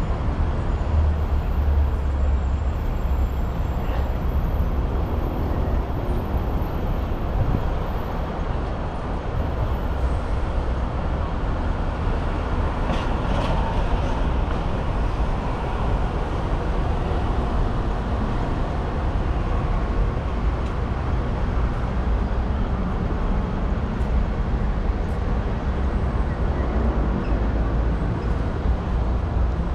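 Steady city traffic noise: a low rumble of buses and cars on a busy road.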